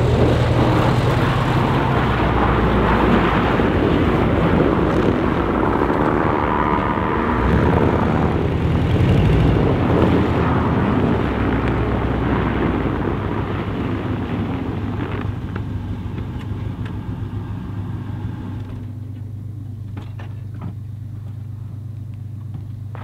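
Volkswagen Vanagon driving, with steady engine and road noise. The noise eases off from about two-thirds of the way in and settles to a quieter steady low hum, with a few light clicks near the end.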